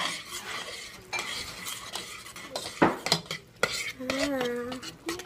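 A spoon stirring Kraft macaroni and cheese in a stainless steel saucepan: continuous wet scraping against the pot, with a few sharp knocks on the metal about three seconds in.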